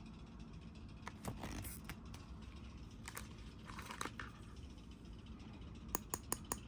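Plastic toy packaging being handled: crinkling and tearing, with scattered sharp clicks and a quick run of four clicks near the end.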